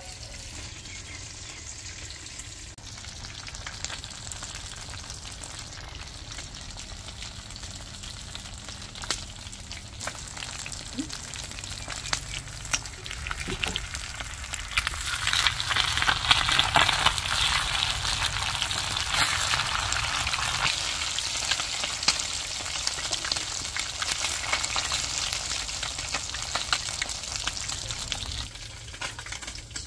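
Masala-coated tongue sole pieces shallow-frying in hot oil in a pan: a steady crackling sizzle, which grows much louder about fifteen seconds in and then slowly eases.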